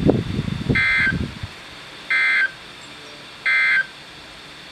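Three short bursts of Emergency Alert System end-of-message data tones, a buzzy digital code about a second and a half apart, played over NOAA Weather Radio through a receiver's speaker. They mark the end of the tornado warning broadcast.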